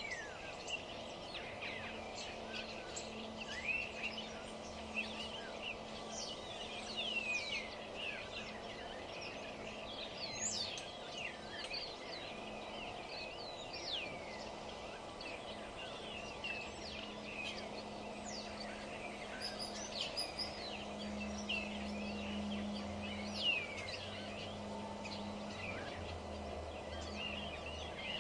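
Several wild songbirds chirping and singing, with many quick falling whistles overlapping. Under them runs a steady low hum that grows stronger about two thirds of the way through.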